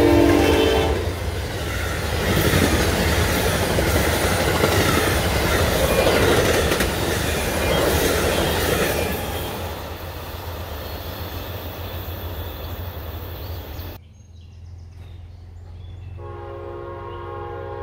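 Train horn chord dipping slightly in pitch as it ends about a second in, followed by a passing train with its wheels clattering on the rails. The sound cuts off suddenly near the end, and a second train horn chord begins.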